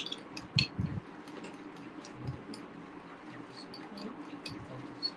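A fork beating whole eggs with grated Parmesan in a ceramic bowl: light, quick clicks of the fork against the bowl, a few a second at an uneven pace, with a couple of dull knocks in the first half.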